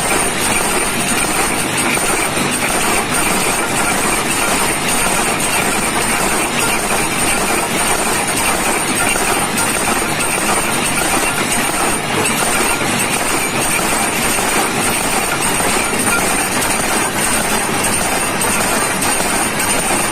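Workshop machinery running loud and steady, with a thin high-pitched whine throughout.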